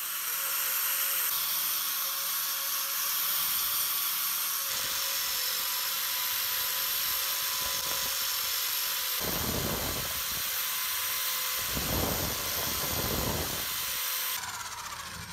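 Rotary wire cup brush on a power tool scrubbing rust off the auger of an antique meat grinder: a steady, high scraping hiss over a motor whine. Heavier low rumbling comes in twice, about nine and twelve seconds in.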